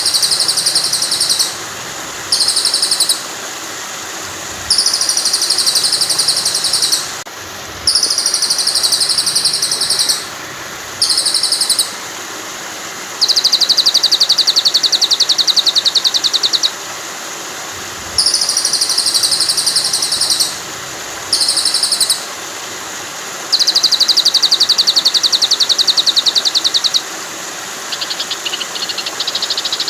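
Bird-song tutor recording for white-rumped shamas (murai batu): high, rapid trilled calls come in repeated bursts of one to three seconds, the two longest around the middle and near the end. Under them runs a steady rush of flowing water.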